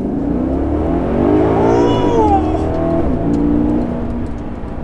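Maserati GranTurismo S's 4.7-litre V8 accelerating hard. The revs climb for about two seconds, then fall away as it shifts up a gear, and the engine eases off near the end.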